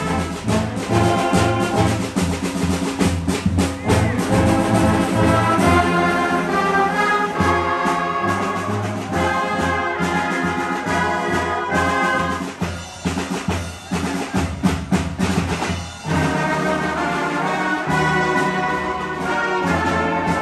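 A youth wind band of trombones, trumpets, saxophones and clarinets playing a tune with percussion. A little past the middle the horns thin out for a few seconds, leaving mostly short hits, then the full band comes back in.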